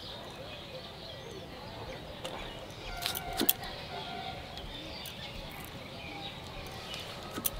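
Kitchen knife cutting through raw jackfruit chunks held in the hand: a few quiet cutting clicks, the clearest about three seconds in, over a faint steady background.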